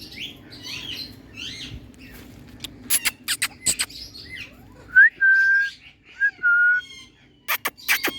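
Pet Indian parrot calling: soft chattering at first, then a run of sharp, short squawks. Two clear whistled notes follow, the first sliding up into a held tone. More sharp squawks come near the end.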